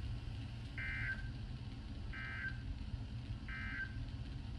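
Three short bursts of NOAA Weather Radio SAME digital data tones, a warbling two-tone screech, through a Midland weather radio's speaker, evenly spaced about a second and a half apart: the end-of-message signal that closes the tornado warning broadcast. A steady low hum runs underneath.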